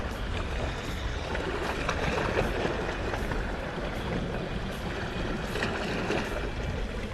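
Steady rushing noise of sea water, even and without distinct strikes.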